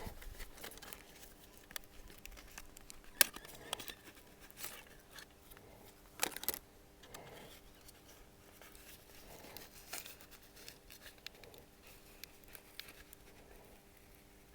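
Faint scraping with a few sharp clicks as a cracked smartphone screen is prised off the phone's frame, its double-sided tape peeling away.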